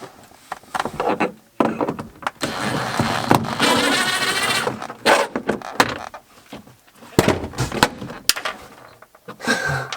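Hand work on a car's rear suspension: a loud whirring whine lasting about three seconds, like a power tool motor under load, followed by a scatter of sharp metal knocks and clunks.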